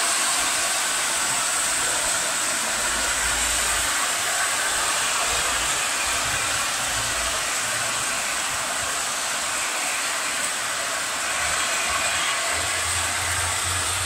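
Heavy downpour: a steady, dense hiss of rain falling hard, with faint low rumbles now and then.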